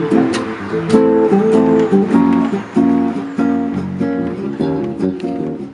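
Instrumental music from a Hawaiian band: acoustic strings strumming chords in a steady rhythm, with no singing.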